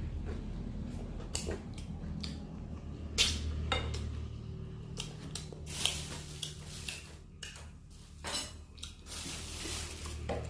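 Close-miked eating: chewing fried chicken and rice, with scattered clicks and clatter of dishes or cutlery and a few louder bursts.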